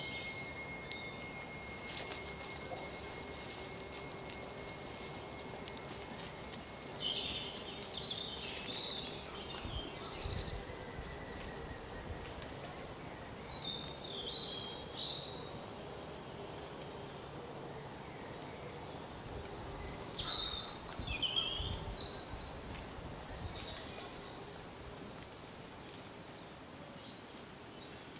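Wild birds singing and calling, with a short high chirp repeated about once a second throughout and other scattered calls, over a faint steady background hiss.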